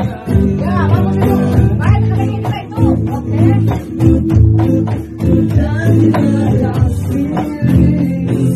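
A voice singing a melody to guitar accompaniment, the guitar sounding sustained chords under the singing.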